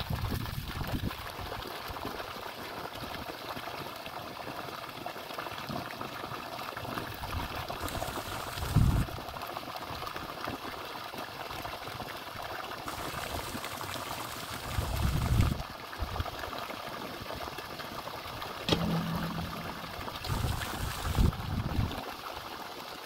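Water gushing steadily from a pump's outlet pipe and splashing onto the soil, with a few brief low rumbles.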